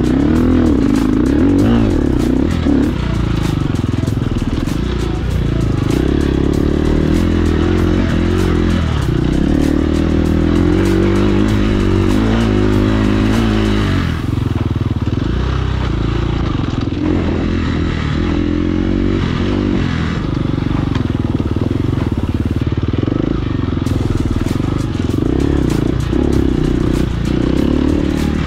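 Off-road motorcycle engine running under load while riding a trail, its pitch rising and falling over and over as the throttle opens and closes, with a steady rattle and clatter over rough ground.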